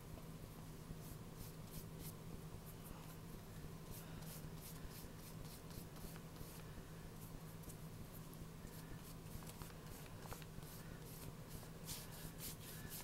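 Faint paintbrush strokes laying watercolor across a wet paper page: many short brushing strokes in quick, irregular succession.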